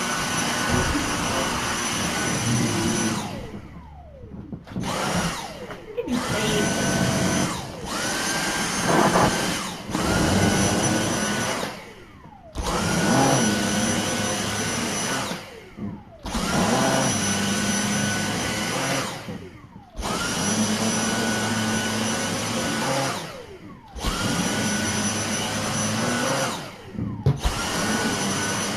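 Vacuum cleaner running with a steady high whine. Every three to four seconds the sound drops away briefly and the pitch rises back up, as the cleaner is worked in repeated passes.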